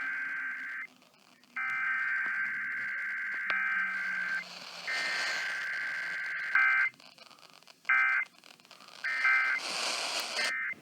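Emergency Alert System SAME data bursts, harsh two-tone screeches: the end of one header burst, two more header bursts of about two to three seconds each, then three short end-of-message bursts about a second apart. The sound of an EAS Required Weekly Test being sent.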